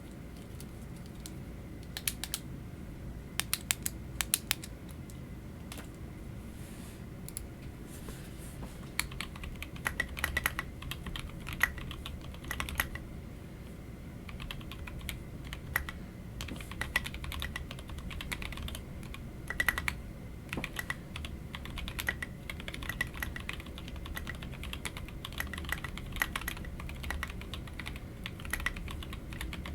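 Typing on a TKC Portico mechanical keyboard with lubed Otemu Sky Blue switches and Signature Plastics SA-profile keycaps. A few separate keystrokes come first, then irregular bursts of typing run through most of the rest.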